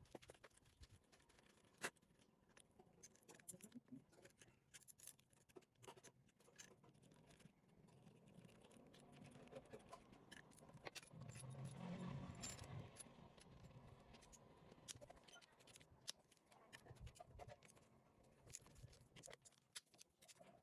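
Faint clicks, taps and scrapes of small metal parts and tools being handled, with a slightly louder low rumble swelling about halfway through.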